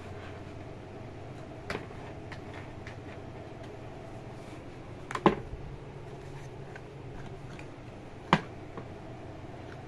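Kitten batting and scrabbling at a cardboard shoebox: sharp taps and knocks on the cardboard, three of them standing out, the loudest about five seconds in, over a steady low hum.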